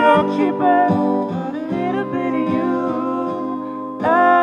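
A woman singing a slow melody with long held notes, with instrumental accompaniment, the voice swelling louder about four seconds in.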